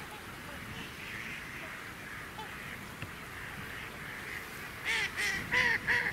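A crowded flock of waterfowl (swans, mallards and Canada geese) calling in a steady background chatter, then a quick run of about four loud honks near the end.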